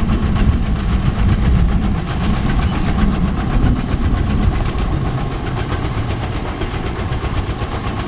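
A small engine running steadily with a fast, even firing rhythm.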